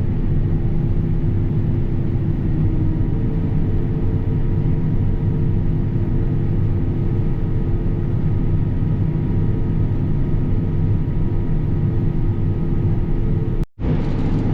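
Combine harvester running steadily under load while harvesting wheat, a constant low drone with steady humming tones. It breaks off for an instant near the end.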